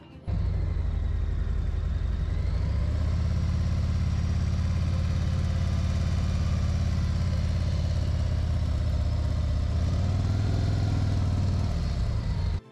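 Motorcycle engine running steadily with a low, even hum, starting abruptly and cutting off suddenly near the end.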